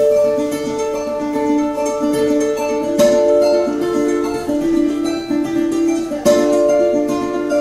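Solo cuatro played in joropo style: a quick plucked melody over ringing notes, broken by sharp strummed chords at the start, about three seconds in and about six seconds in.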